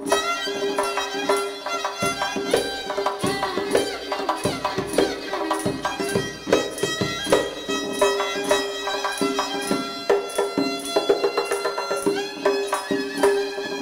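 Violin playing an ornamented Persian classical melody in Dastgah-e Homayoun, with sliding notes, accompanied by a tombak (goblet drum) struck by hand in a steady rhythm of about two strokes a second.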